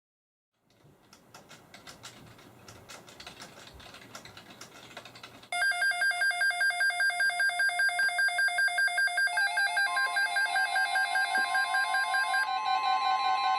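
Several NOAA weather alert radios going off together as an alert comes in. A faint crackling hiss rises over the first few seconds. Then the radios' own electronic alarms start at once, a loud, rapidly pulsing chorus of high beeps. Partway through, a steady single alarm tone of about 1 kHz joins in, typical of the National Weather Service 1050 Hz warning tone.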